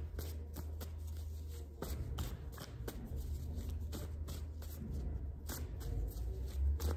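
A deck of cards being shuffled by hand for a card reading: a steady run of quick, irregular card clicks and riffles over a low hum.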